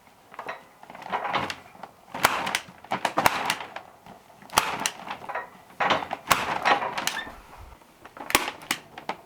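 Stapler clacking as paper shooting targets are stapled up, about half a dozen sharp clacks a second or more apart, with paper rustling between them.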